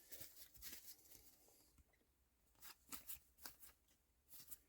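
Near silence with a scattering of faint, short clicks and rustles of trading cards being handled and slid over one another.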